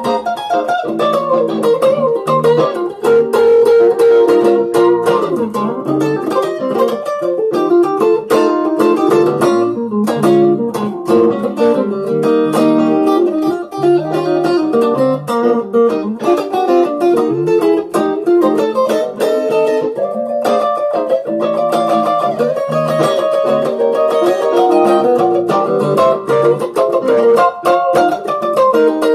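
Strat-style electric guitar played through a Zoom G1on multi-effects pedal: a B-flat blues improvisation built from a steady stream of picked notes.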